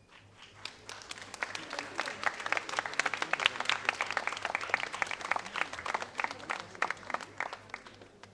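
Audience applauding in a large hall: many hands clapping, building up about a second in and dying away near the end.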